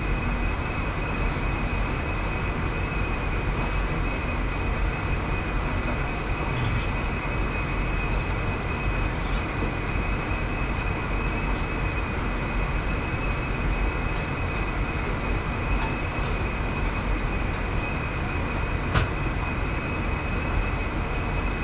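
Steady roar of a commercial kitchen's exhaust hood fans and gas burners, with a faint steady high whine over it. A few light utensil clinks, then a single knock near the end.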